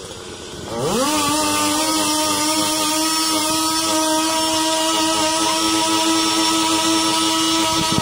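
Chainsaw engine revved from idle up to full throttle about a second in, then held at a steady high pitch.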